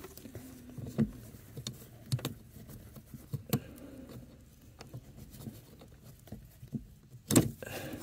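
Scattered light clicks and knocks of hands working the accelerator cable's plastic retaining pin at the top of the accelerator pedal arm, with one louder knock near the end.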